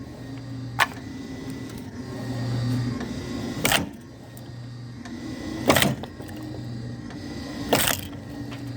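Homemade log splitter's 0.5-horsepower electric motor and 60:1 reduction gearbox running with a steady hum, broken by four sharp cracks about two seconds apart as the machine works.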